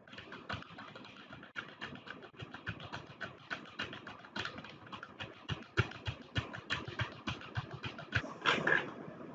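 Computer keyboard keys clicking in a quick, irregular run, several strokes a second, as commas are typed at the end of line after line of coordinates. There is one longer, louder noise about eight and a half seconds in.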